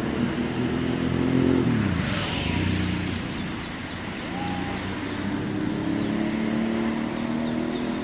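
Motor vehicle engines passing on a street. One engine's pitch falls about two seconds in as it goes by, and another comes up from about five seconds in and runs at a steady pitch.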